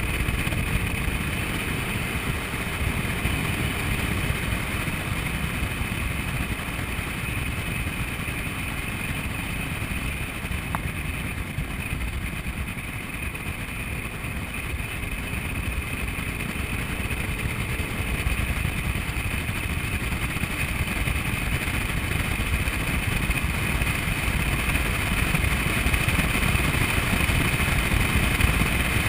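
Honda Ruckus scooter's small single-cylinder engine running steadily at cruising speed. Wind rushing over the microphone largely covers it.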